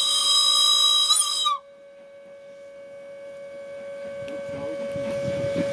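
Steam whistle of the 1910 SLM steam rotary snowplow Xrotd 9213 blowing a multi-tone note that cuts off sharply about a second and a half in. After it, the plow's low working rumble grows steadily louder.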